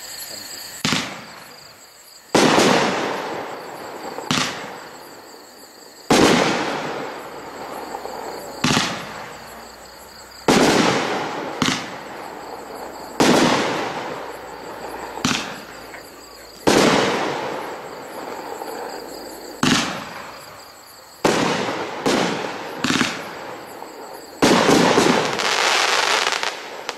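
A Red Lantern 'Unusual Style' 500-gram, 18-shot fireworks cake firing its shots in sequence: a string of sharp bangs, about one every one to two seconds, each trailing off, with a few coming close together and the last a longer, fuller burst. Crickets chirp faintly underneath.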